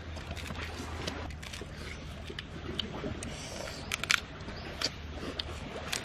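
Sharp crunchy clicks and cracks of cooked sand lobster shell being broken apart by hand and chewed, scattered through, with the loudest cluster about four seconds in, over a steady low background hum.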